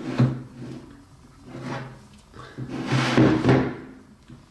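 Knocks and scraping of hard objects being handled: a sharp knock just after the start and a longer clatter about three seconds in.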